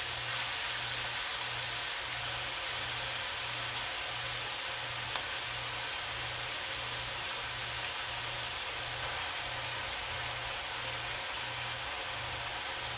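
Steady low sizzle of tofu and vegetables frying in a wok over a low gas flame, with a low hum pulsing about one and a half times a second underneath.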